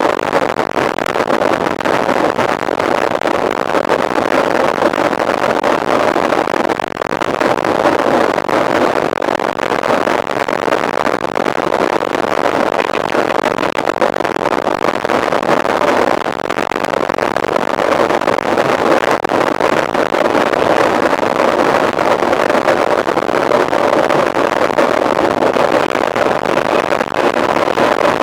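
Steady, loud rushing noise of wind and rolling motion on a camera carried while riding.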